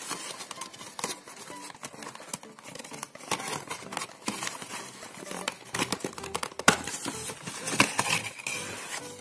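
Cardboard watch box and its card liner being handled: rustling and scraping with many irregular small clicks and knocks of card against card and fingers.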